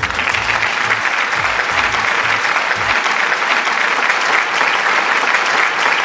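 Audience applauding steadily, dense and sustained clapping throughout.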